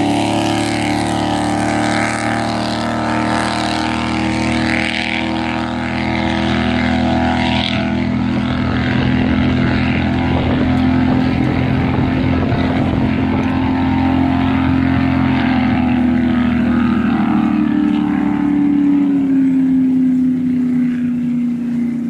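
Powerboat's built 496 cubic inch big-block Chevy V8 running hard at speed as the boat pulls away across the water. A steady engine note that grows duller as it moves off, its pitch dropping slightly near the end.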